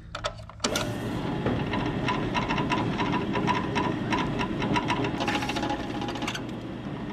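Drill press switching on about half a second in and running steadily, its twist bit cutting into an aluminium adapter clamped in a vise.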